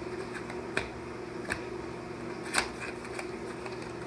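Small cardboard box being handled and its end flap pulled open by hand: a few sharp clicks and taps, the loudest about two and a half seconds in.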